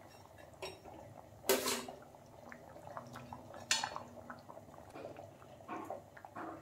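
A metal spatula and spoon clinking and scraping against a kadai of fish curry as the fried fish pieces go into the gravy: about four short clinks, the loudest about a second and a half in.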